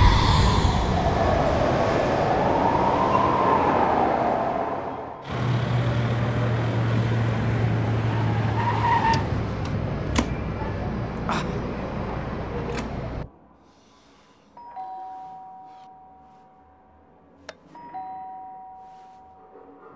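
The orchestral title music ends in a swelling sweep, then a car's engine hums steadily with road noise, heard from inside the cabin, until it cuts off about 13 seconds in. An electric doorbell then sounds a steady two-note tone, held down for a couple of seconds, twice.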